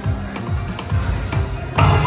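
Slot machine game music and sound effects during a free-game spin on an Aristocrat Lightning Link High Stakes machine: a run of short, falling low notes, then a sudden louder change in the sound near the end as the reels land.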